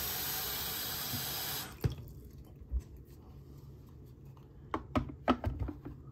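Tap water running into the water flosser's reservoir, turned off a little under two seconds in. Then a few light clicks and knocks as the unit is handled.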